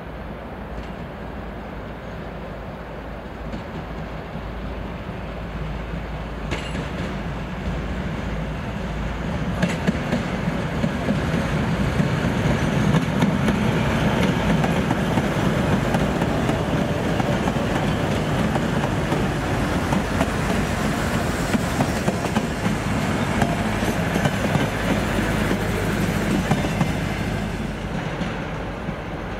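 2M62 twin-section diesel locomotive with its two-stroke diesels running, hauling a work train past at speed, the wheels knocking over the rail joints. It grows louder for about ten seconds as it comes up, stays loud while the train goes by, and fades near the end as it pulls away.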